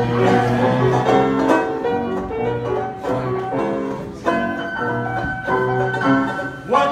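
Upright piano played in lively ragtime style, with a banjo strumming along.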